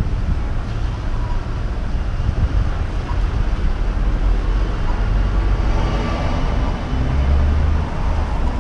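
Busy street traffic noise from a line of cars in slow, queued traffic, with a steady low rumble.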